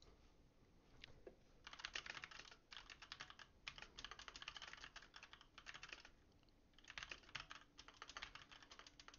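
Typing on a computer keyboard: faint, quick runs of keystrokes with a pause of about a second near the middle.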